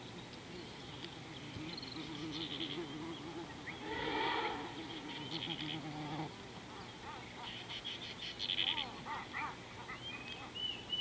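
Wild birds and other animals calling in the bush: bursts of rapid high trills come every few seconds, with a lower wavering call in the first half and short chirps near the end.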